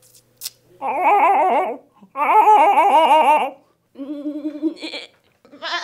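A person's voice imitating a farm animal: four wavering calls with a fast wobble in pitch, the second the longest and loudest.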